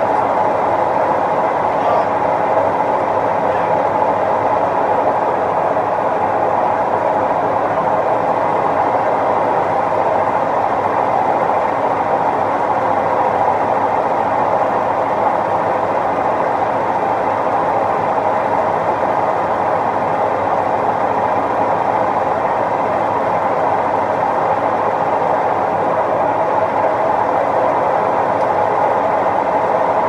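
Maytag Neptune front-loading washers running a spin cycle, a steady, loud mechanical whir with no change in pitch or level.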